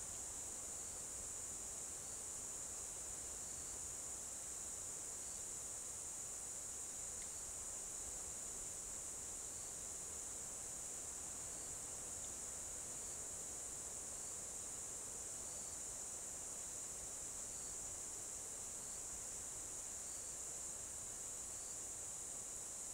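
Steady high-pitched chorus of forest insects, unbroken throughout, with faint short chirps every second or two.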